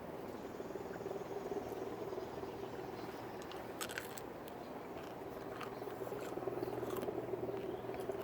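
Chewing crunchy-shelled gummy worms (Trolli Sour Crunchy Crawlers): steady wet mouth noises with a few sharper crunches, about four and seven seconds in, as the hard sugar shell cracks.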